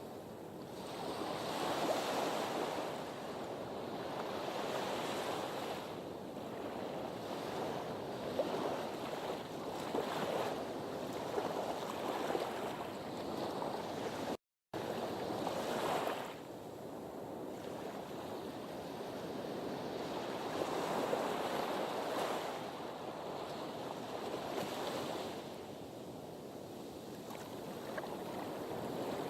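Sea waves washing against a harbour breakwater, the surf swelling and easing every few seconds. The sound drops out briefly about halfway through.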